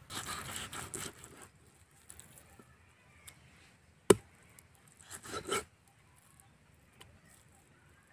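A large kitchen knife cutting through pork skin and fat on a wooden stump block: rough slicing strokes at first, then one sharp chop of the blade into the wood about four seconds in, and another short cutting stroke a second later.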